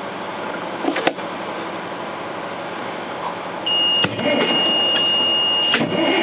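A steady high-pitched electronic alert tone starts about three and a half seconds in and holds without a break, over a constant hiss, with a few faint clicks before it.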